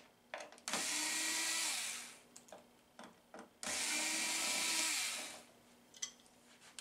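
Electric screwdriver run twice, about a second and a half each time, backing out the screws that hold a TV stand foot; the motor winds down in pitch at the end of each run. Small clicks between the runs.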